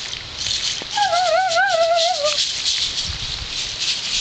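A rattle shaken rhythmically in a dense, high-pitched shaking pattern, with a voice warbling a wavering note for about a second and a half near the start, as a dance chant.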